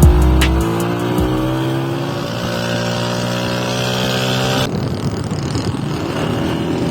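Motorcycle engine, likely the restored Honda CG 125's single-cylinder four-stroke, running with its pitch slowly sliding as the revs change. The sound changes abruptly about two-thirds of the way through.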